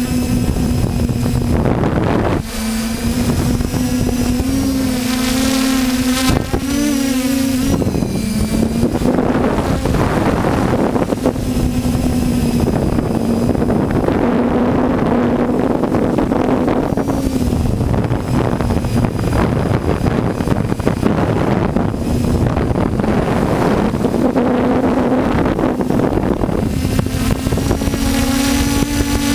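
Multirotor drone's electric motors and propellers buzzing steadily, heard from the camera mounted on the drone, with the pitch wavering and dipping now and then as the throttle changes, over a steady rushing noise.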